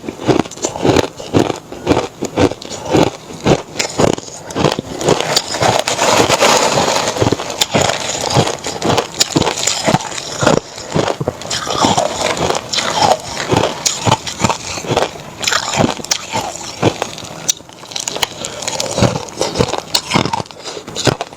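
Mouth chewing reshaped crushed ice dusted with matcha powder: continuous, rapid crunching, several crisp crunches a second.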